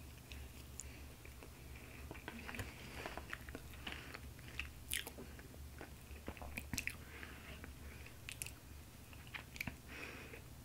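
A person chewing a mouthful of soft, buttercream-frosted funfetti cake: faint wet mouth noises and small smacking clicks over a steady low hum.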